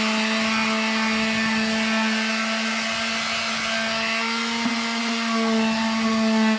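Handheld corded electric sander running at a steady pitch, its pad pressed against the edge of a wooden board to smooth a freshly cut edge.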